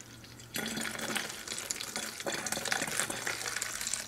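Water poured from a glass measuring cup into the narrow neck of a plastic spray bottle, a steady splashing fill that starts about half a second in.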